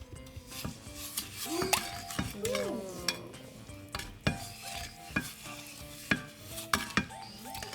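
A spoon stirring sugar, water and butter syrup in a pot on the heat, clinking against the pot about once a second, over a light sizzle.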